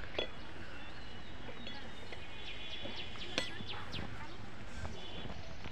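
Birds chirping in the background over steady outdoor noise, with a short knock just after the start and one sharp click about three and a half seconds in.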